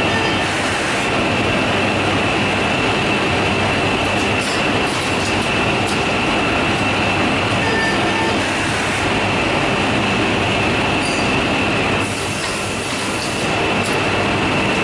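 Homag KL 26 woodworking machine running, its pad-chain feed conveyor carrying wooden panels under the pressure rollers: a steady mechanical clatter with a constant high whine. The noise eases slightly for a moment near the end.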